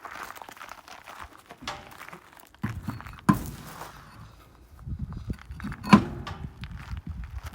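Scraping and rattling of work on a stuck lug nut on a truck wheel, with two sharp knocks about three and six seconds in, the second the louder.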